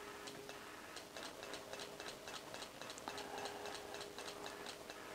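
Icom IC-7300 transceiver's transmit/receive relay clicking rapidly and faintly, about four clicks a second, as its SWR graph function keys the transmitter step by step across the 15 m band in 10 kHz steps.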